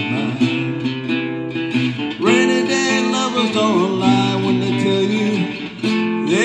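Acoustic guitar strummed and picked in a steady folk accompaniment, a short instrumental break between sung lines.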